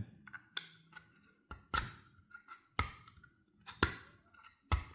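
Small 3D-printed plastic engine parts (sliding valves) being handled and test-fitted, giving sharp separate clicks and knocks about once a second. The valves are not yet fitting their slots.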